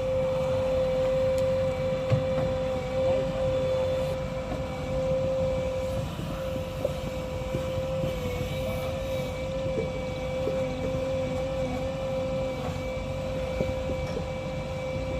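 JCB 3DX backhoe loader's diesel engine running under work, a low rumble under a steady, slightly wavering whine held at one pitch.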